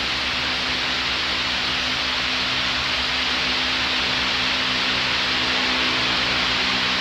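Wall-mounted fan running steadily: an even rushing hiss with a low motor hum underneath.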